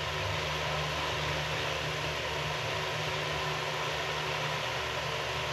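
Steady room background noise: a low mechanical hum with an even hiss over it.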